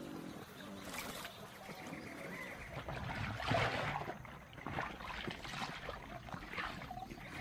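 Water splashing and sloshing as an Australian pelican plunges its bill into the water after fish, with several separate splashes, the loudest about three and a half seconds in.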